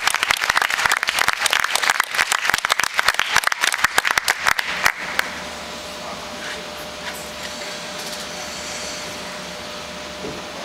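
Audience clapping and applauding, which stops suddenly about five seconds in. What remains is a steady hum with a faint held tone.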